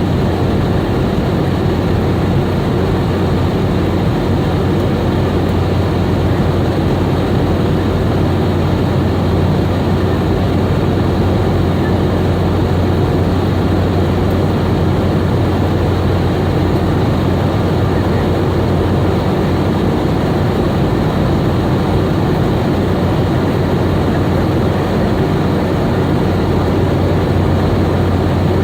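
Steady engine and airflow noise inside the cabin of a Boeing 717 in flight, a constant rush with a deep low drone from its rear-mounted Rolls-Royce BR715 turbofans.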